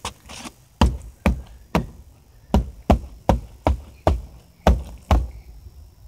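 A string of sharp knocks or clicks, about two to three a second and slightly irregular in spacing.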